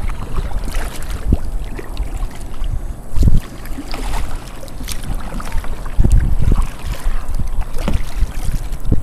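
Wind rumbling on the microphone aboard a kayak on the sea, with water noise and scattered knocks, and a loud thump about three seconds in.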